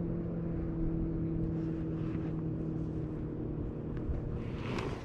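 Steady mechanical hum of a motor or engine running at a constant pitch, over a low rumble, with a short rush of hiss near the end.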